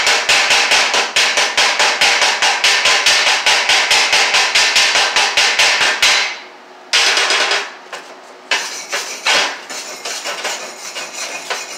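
Steel chipping hammer rapidly striking a fresh stick-weld bead, about six blows a second for about six seconds, knocking the slag off. After a short pause comes a brief second flurry, then slower, irregular taps.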